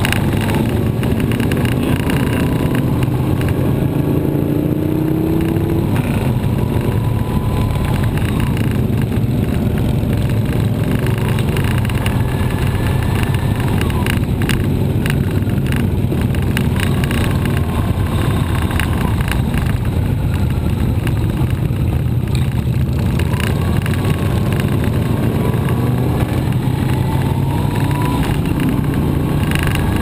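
Motorcycle engine running steadily at low road speed, with the rumble of other motorcycles riding close ahead.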